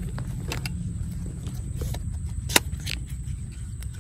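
A single sharp crack of an air rifle firing, about two and a half seconds in, over a steady low rumble.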